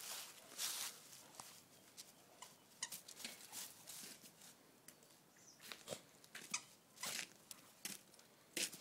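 Two dogs tugging on a toy between them: a string of short, irregular noisy rustles and snuffles, with a brief high squeak now and then.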